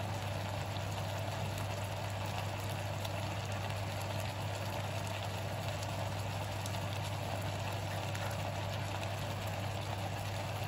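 Violet blewit mushrooms bubbling and sizzling in their own juice in a frying pan, with fine pops throughout, as the liquid cooks off before they brown. A steady low hum sits underneath.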